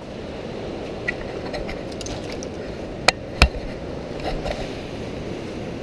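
Colorado River rapids rushing steadily, with two sharp knocks about three seconds in and a few faint ticks.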